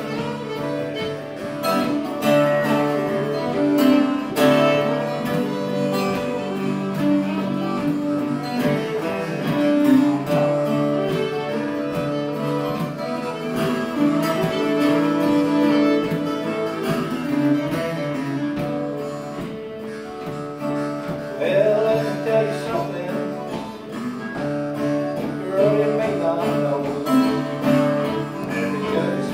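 Small acoustic string band playing live: acoustic guitar, fiddle, harmonica and jaw harp together, with held harmonica and fiddle notes over the guitar.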